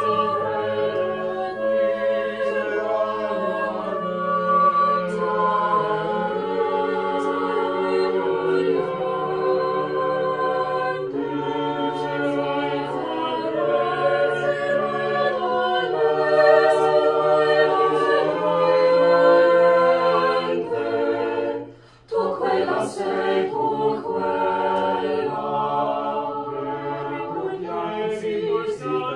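Mixed chamber choir singing a cappella in sustained, changing chords, with a brief break for breath about three-quarters of the way through before the singing resumes.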